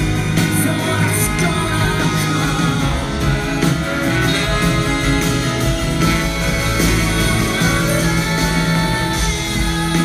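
Live band playing a long instrumental stretch of a song, guitar prominent over a steady low bass, heard from the audience in a concert hall.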